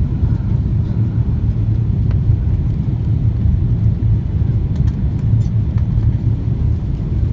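Steady low rumble of a jet airliner's engines and rushing air, heard inside the passenger cabin during the descent to land.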